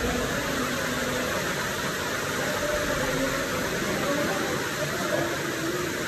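Steady rush of a small waterfall splashing into a rock pool.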